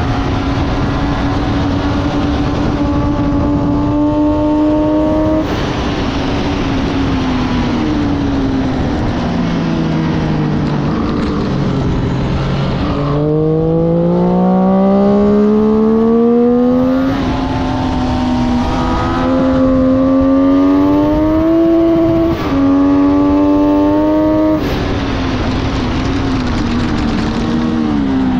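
Motorcycle engine at racing speed with heavy wind rush. The engine note falls away for several seconds as the bike slows, then rises hard from about halfway through, with sudden drops in pitch at each upshift, two of them close together near the end.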